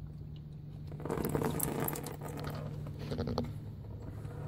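Used motor oil escaping from around a just-loosened spin-on oil filter and pattering down, starting about a second in, heaviest for a second and then tapering off.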